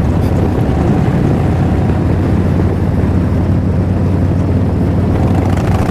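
Harley-Davidson Street Glide's V-twin engine running steadily at cruising speed, mixed with wind and road noise.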